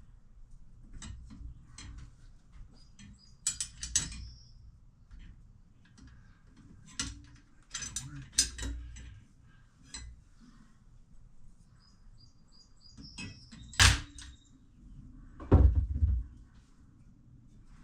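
Metal parts and hand tools clinking and knocking while motor mounts are fitted to an electric motor: scattered clicks and clanks with a few short metallic rings, a sharp knock about fourteen seconds in and a heavier thump just after.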